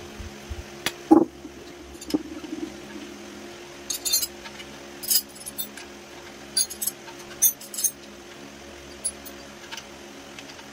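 Metal tools and parts clinking and tapping during work to remove a mini bike's rear wheel: a dozen or so short, sharp clinks, loudest about a second in and clustered a few seconds later, over a steady low hum.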